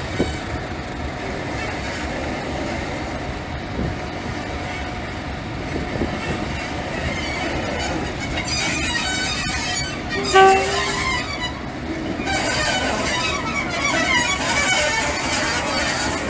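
Class 31 diesel locomotive, English Electric V12 engine, running as it approaches slowly. A high-pitched squeal from the running gear comes in partway through, and a short horn toot sounds about ten seconds in.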